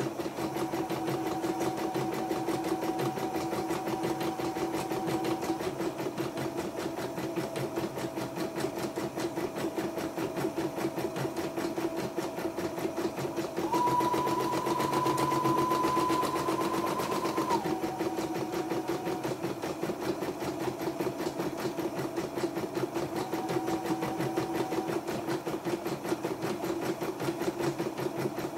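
YOKO portable computerized embroidery machine running, the needle stitching rapidly in a fast, even rhythm over a motor whine. Midway its whine steps up in pitch and gets louder for about four seconds, then drops back.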